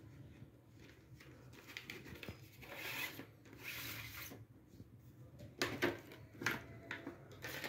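A clear plastic blister tray scraping as it slides out of a cardboard sleeve, then thin plastic packaging crinkling and clicking sharply a few times as it is handled.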